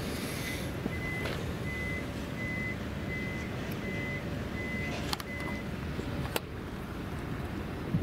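A vehicle's reversing alarm beeping at a steady pitch, about one beep every three-quarters of a second, stopping a little over halfway through, over a low steady rumble.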